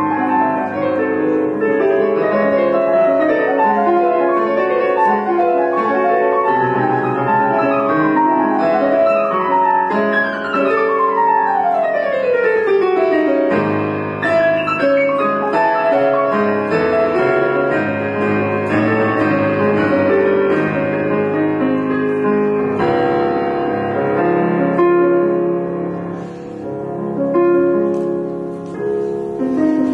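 Casio Privia digital piano played solo: a busy piece of fast, many-note passages, with a long rapid downward run about ten seconds in and a brief softer stretch near the end.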